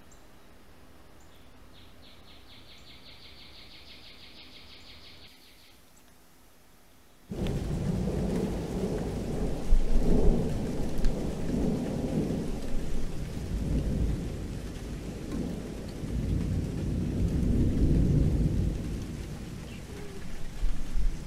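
Thunder rumbling over steady rain, cutting in suddenly about seven seconds in and swelling several times, after a quiet stretch holding a faint high, rapid trill.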